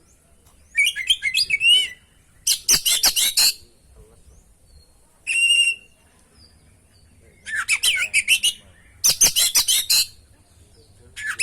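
Oriental magpie-robin singing in short, varied phrases separated by pauses: sweeping whistled notes mixed with fast, harsh rattling trills, and one brief clear whistle in the middle.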